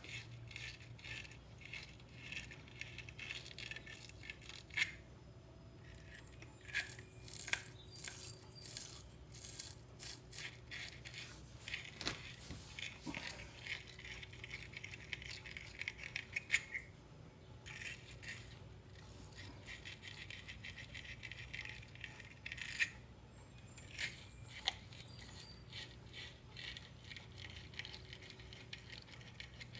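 Flywheel bolt threads in a crankshaft flange being cleaned out by hand: irregular scratching and rattling of metal tools in the threaded holes, with scattered sharp clicks, over a steady low hum.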